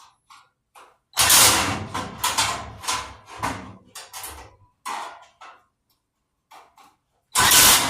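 Sheet-metal stand parts of a parts washer being handled and fitted as its shelf is bolted on: irregular bursts of clanking, scraping and rattling, the loudest about a second in and again near the end.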